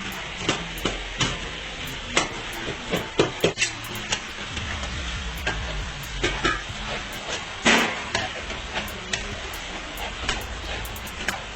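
Chicken sizzling in a karahi (wok), with a metal spatula repeatedly knocking and scraping against the pan at irregular intervals as it is stirred.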